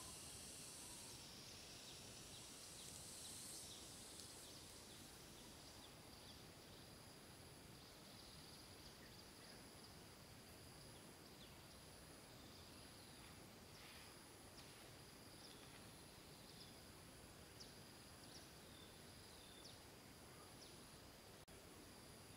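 Faint outdoor ambience: a steady high insect drone, with scattered short bird chirps through the middle and later part.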